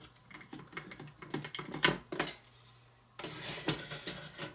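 A small metal baking pan being pushed back into a toy Easy-Bake Oven: a run of light clicks and scrapes as it slides through the oven's slot, then a short pause and more clattering handling near the end.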